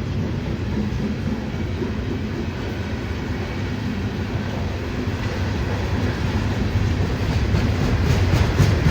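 CSX freight train rolling past: a steady low rumble of wheels on rail that grows louder near the end, with clicking over the last second or so.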